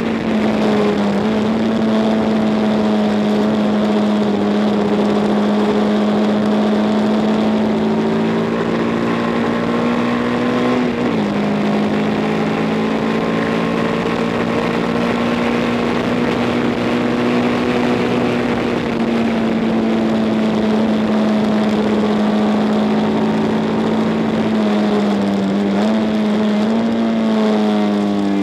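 1962 Matchless G50 single-cylinder four-stroke racing engine running hard at speed, heard from on board. Its pitch climbs slowly, drops sharply about eleven seconds in as from a gear change, then climbs again. Near the end it dips and blips as the bike slows, with a steady rush of wind noise underneath.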